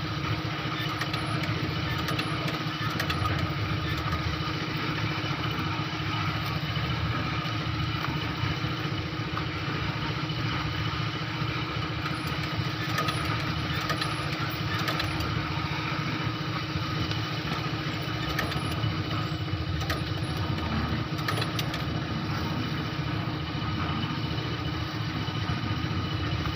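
A small motor running steadily at an even speed, with scattered light clicks.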